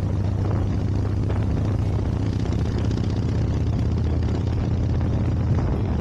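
2007 Harley-Davidson FXDC Dyna's Twin Cam 96 V-twin running at a steady cruise, with wind rushing over the microphone.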